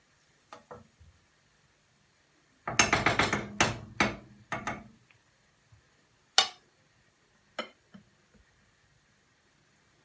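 Metal spoon knocking and scraping against a frying pan: a quick clatter of knocks about three seconds in, then a few separate sharp taps, the last near the end.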